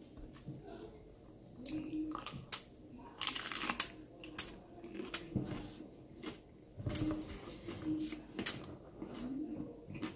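Crunching bites into a hard corn taco shell and chewing, with sharp crackles of the breaking shell; the loudest crunching comes in a cluster a little over three seconds in.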